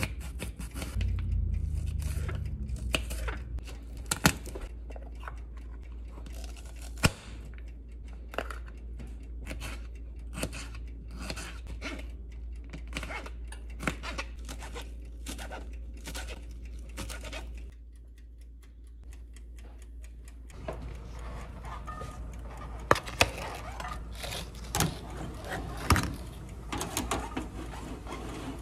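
Kitchen knife chopping onion and tomato on a plastic cutting board: irregular sharp taps, one or two a second, over a steady low hum. In the last few seconds there is a looser clatter with a few louder knocks as dishes and food are handled.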